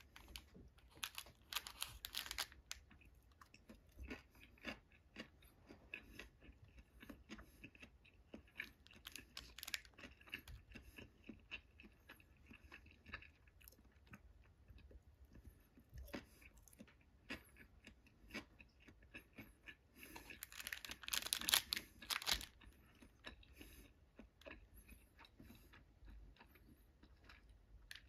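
A person chewing sushi close to the microphone, with many small scattered clicks and crackles and a louder noisy stretch about twenty seconds in.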